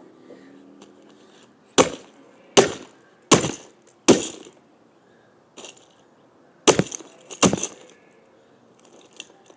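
Hard blows smashing a Furby toy, its plastic shell cracking and breaking apart. Four sharp hits come in quick succession, then after a pause a faint knock and two more hits.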